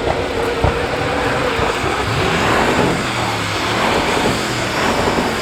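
Modified car engines running loudly, one revving up about two seconds in.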